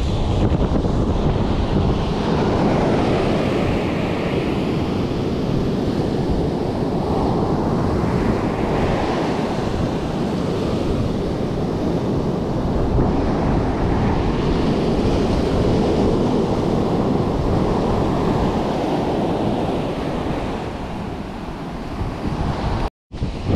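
Surf washing onto a sandy beach, with wind buffeting the microphone. The sound drops out for a moment near the end.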